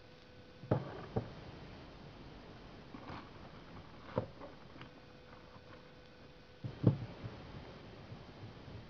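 A few light knocks and handling noises from hands, paper and pen on a desk, the two loudest near the start and about seven seconds in, over a faint steady hum.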